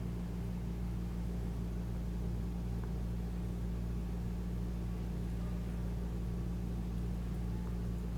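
Steady low hum with an even faint hiss, unchanging throughout.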